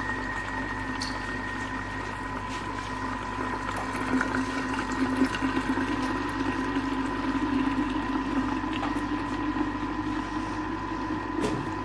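Thermomix mixer motor running steadily at stirring speed 3, churning liquid in its bowl, as a stream of soy milk is poured in through the lid opening.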